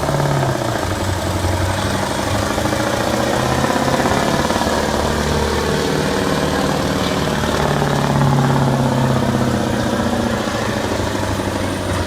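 1989 Mack Superliner semi's V8 diesel engine running hard under load as it pulls the weight sled, its note rising and falling in pitch.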